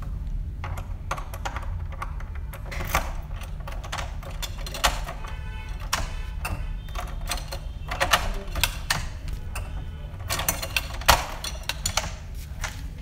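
Low, steady droning rumble under irregular sharp clicks and knocks that come more often from about eight seconds in.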